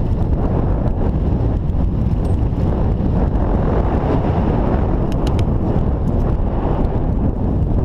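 Wind buffeting the microphone of a GoPro on a moving bicycle, a steady loud rumble, with a few brief clicks about five seconds in.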